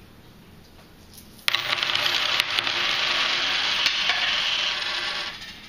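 A shower of loose coins jingling and clattering, starting suddenly about a second and a half in and lasting nearly four seconds before fading.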